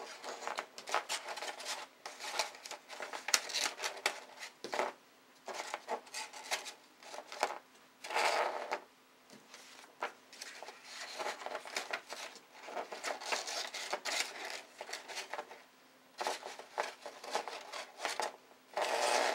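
Stiff drafting-vellum sheets rustling and crackling as they are flexed, slid and slotted together, with irregular small clicks and a few longer swishing rustles.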